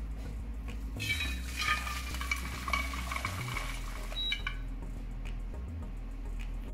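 Beef stock poured from a stainless pot through a metal sieve into a hot braising pan, splashing for about three and a half seconds, with light metal clinks.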